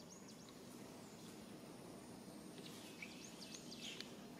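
Faint outdoor background noise with quick, high bird chirps: a few at the very start and a run of several about three seconds in.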